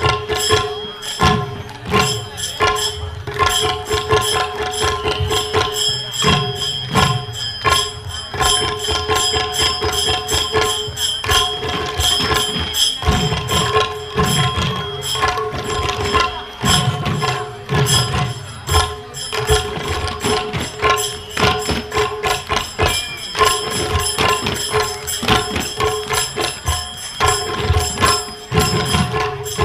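Pung, the Manipuri two-headed barrel drum, played by many drummers together in a fast, dense rhythm with booming low strokes, over a steady held melodic tone, as traditional Manipuri drum-dance music.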